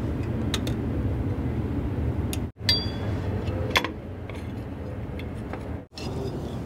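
Light metallic clinks and taps of drum-brake shoes, springs and hardware being handled, a handful of scattered strikes with one ringing briefly, over a steady low background hum. The sound drops out abruptly twice.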